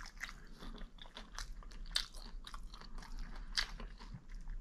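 A person chewing food close to the microphone: irregular small crunches and clicks of eating, with no talking.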